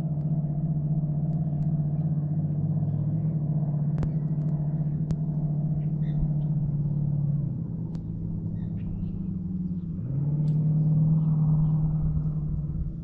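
A motor engine running steadily with a low hum. Its pitch drops about seven and a half seconds in, then rises again and holds about ten seconds in. Faint bird chirps sound over it.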